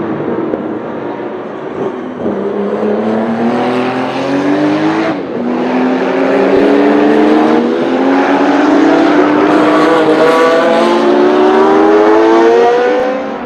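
Porsche 935 Kremer race car's turbocharged flat-six accelerating hard through the gears. Engine pitch climbs in each gear and drops at each of several upshifts, and the sound grows louder before falling away sharply near the end.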